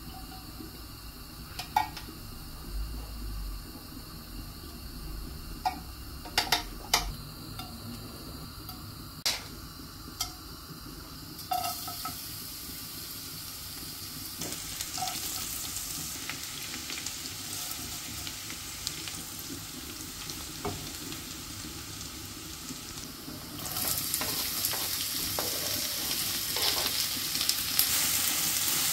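Garlic and whole spices frying in hot oil in a non-stick pan, then chopped onion stirred in with a silicone spatula. The pan is quiet at first apart from a few sharp clicks; sizzling starts about a third of the way in, grows, and gets much louder near the end.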